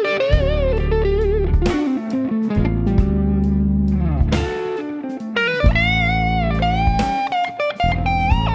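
Background music led by an electric guitar, its held notes bent and wavering, over a low bass line.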